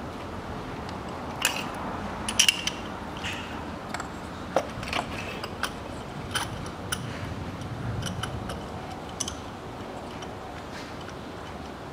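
Scattered metal clicks and light scraping as a spark plug socket on an extension is turned by hand, threading a new spark plug into the cylinder head.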